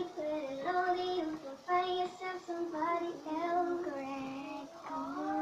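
A child singing a tune in held notes that step up and down in pitch.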